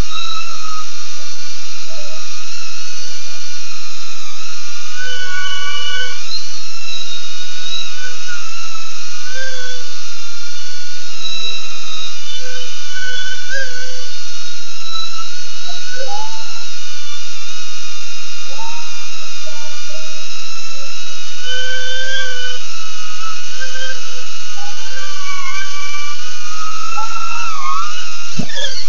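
BetaFPV Aquila16 FPV drone in flight: its small brushless motors and propellers whine at a high pitch. The pitch wavers up and down with the throttle, with a quick dip and rise near the end.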